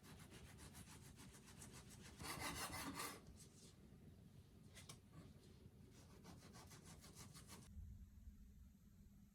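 Faint, rapid rhythmic scraping or rubbing, louder for about a second around two seconds in, stopping shortly before the end.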